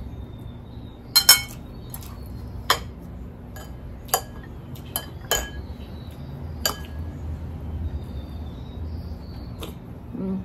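Eating utensils, chopsticks and a metal fork, clinking against ceramic bowls and plates during a meal: a few light, scattered clinks, the loudest a quick double clink about a second in.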